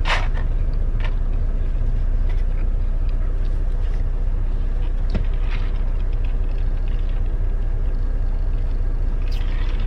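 Steady low rumble of a semi truck's idling diesel engine heard inside the cab, with a few faint clicks near the start and about five seconds in.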